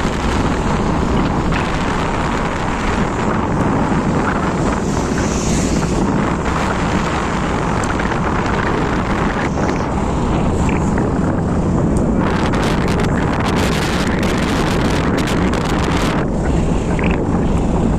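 Wind rushing and buffeting the microphone on a moving scooter, with the scooter's engine and road noise underneath. The buffeting turns harsher and crackly for a few seconds past the middle.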